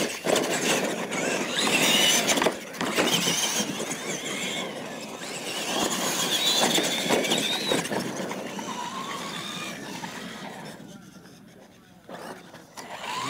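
Radio-controlled monster trucks racing on dirt: their motors and gears whine up and down in pitch with the throttle, over the rush of tyres. The sound fades away over the last few seconds.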